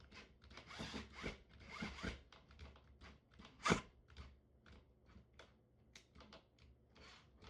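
A run of short, irregular scraping and clicking noises from a small hand-held driver working at a smoke alarm's mounting base, rasping more densely for the first couple of seconds, with one louder sharp click about halfway through.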